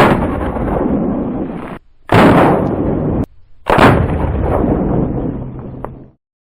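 Three shots from a .44 black powder cap-and-ball revolver, about two and one and a half seconds apart. Each is a sudden loud blast with a long echoing tail of over a second.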